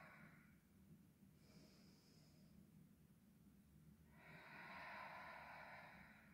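Faint breathing of a woman exercising: a soft breath about two seconds in, then a longer audible exhale from about four seconds in as she lifts an exercise ball overhead, paced to the exercise. Otherwise near silence.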